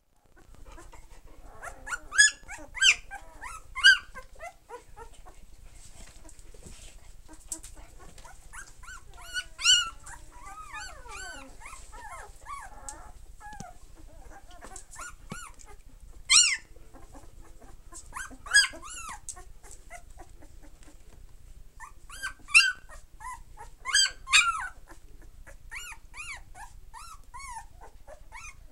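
Thirteen-day-old Entlebucher Mountain Dog puppies whimpering and squealing in short, high-pitched cries that rise and fall. The cries come in clusters every few seconds, with softer whines between them.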